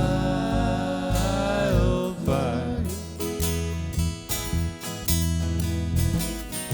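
Acoustic folk band playing: strummed and picked acoustic guitars over bass, with a held melody line that bends in pitch over the first two seconds before the strings carry on alone.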